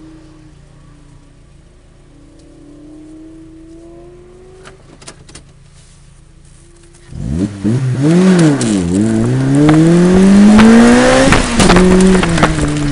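Autocross car's engine idling quietly, then launching hard about seven seconds in: the engine note climbs, dips briefly, climbs again and levels off to a steady pull near the end.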